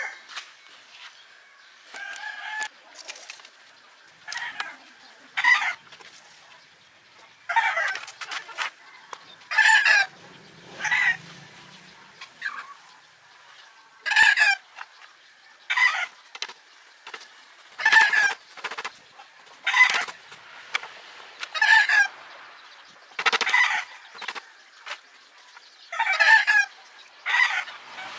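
Chicken clucking: short, pitched calls repeated every second or two.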